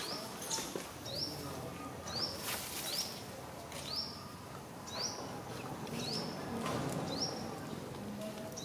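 A small bird calling: a short, high chirp that sweeps up sharply and levels off, repeated steadily about once a second.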